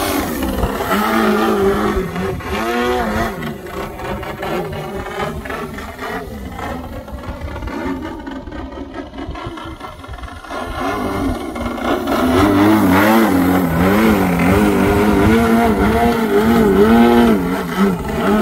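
Radio-controlled Extra 330 model plane's OS GT33 single-cylinder two-stroke petrol engine in aerobatic flight, its pitch rising and falling with the throttle. From about twelve seconds in it gets louder, the pitch wobbling quickly up and down in short throttle bursts.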